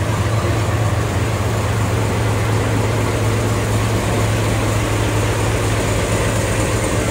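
A DE10 diesel-hydraulic locomotive's engine idling close by, a loud, steady low hum.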